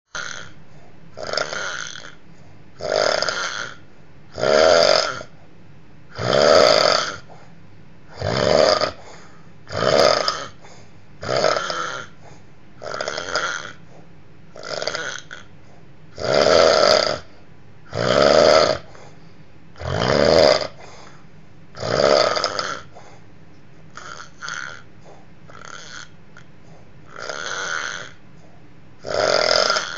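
A person snoring heavily, with a rasping snore about every one and a half to two seconds.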